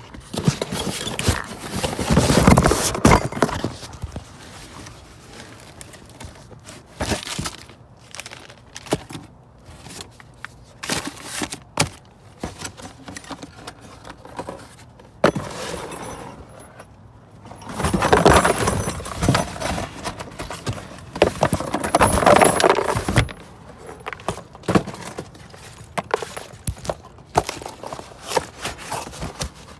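Rummaging through dumpster debris of metal hardware: scattered clinks, knocks and scrapes, with two longer spells of louder clattering, one near the start and one about two-thirds of the way through.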